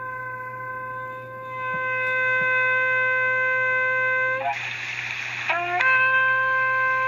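A shofar blown in one long, steady blast. About a second past the halfway mark the tone breaks into a rough, raspy blare for just over a second, with short upward slides, and then settles back into the steady note.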